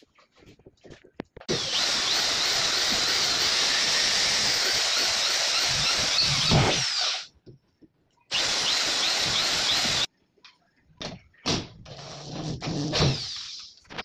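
Corded electric drill drilling into an aluminium door frame, in two runs with a whine: a long one of about six seconds, then a short one of under two seconds. After that come a few light knocks and handling sounds.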